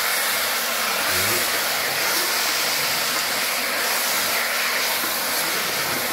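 Duck pieces sizzling and frying in hot oil with lemongrass and chilli in a stainless steel pot, stirred with chopsticks: a steady hiss.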